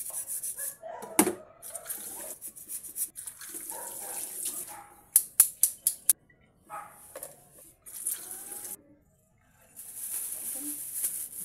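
Kitchen food-preparation sounds: a large knife cutting through a bundle of vegetable stems, with one sharp knock just over a second in and a quick run of sharp knocks about five seconds in. Near the end comes the crinkly rustle of a clear plastic bag of vegetables being handled.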